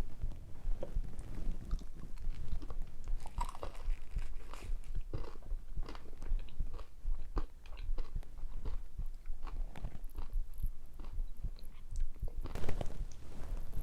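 A person chewing and biting food, close to the microphone: a steady run of short clicking chews, a few each second.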